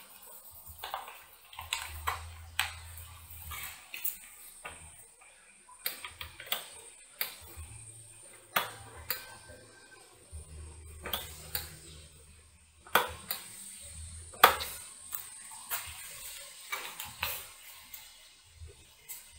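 Hands working inside an open desktop PC's metal case: irregular clicks and light metallic knocks as cables and parts are handled, with one sharper knock about three-quarters of the way through.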